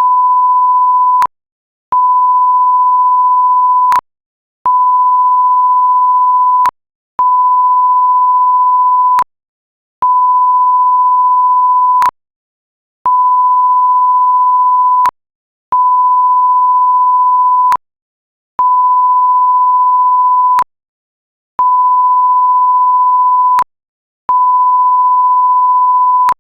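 Censor bleep: a steady, single pure beep tone, sounded about ten times in a row, each about two seconds long with short silent gaps between, with a faint click as each one starts and stops.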